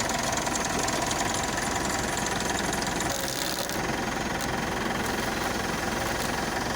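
Car engine idling steadily with the throttle released, checked for a whistling drive belt.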